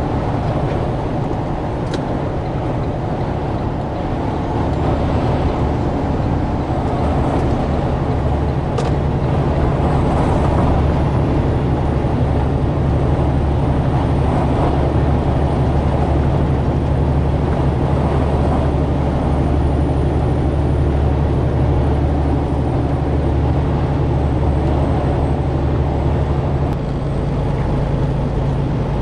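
Inside a semi-truck's cab at highway speed: the diesel engine drones steadily under road and wind noise. Near the end the engine's low note changes.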